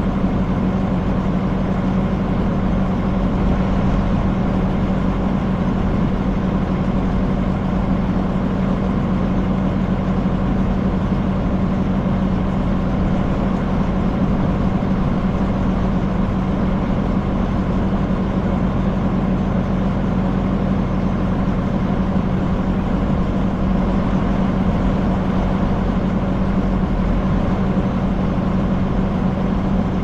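Farm tractor engine running steadily at constant speed with a steady hum, driving a hay baler.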